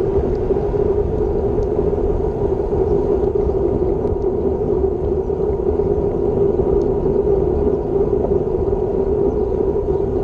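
Wind rushing over a bike-mounted action camera's microphone, with tyre noise on asphalt, while riding a road bike at about 30 km/h. It makes a steady, unbroken rush with a constant droning note.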